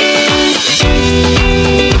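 Background music with guitar and drums, heard as pitched notes over repeated drum hits that drop in pitch; a deep, loud bass comes in just under a second in.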